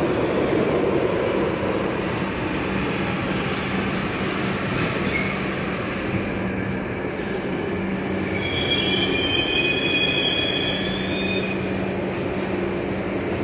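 R62 subway train running into an underground station, with a steady wheel rumble and a low hum. From about eight seconds in, a high wheel squeal sounds for a few seconds as the train slows.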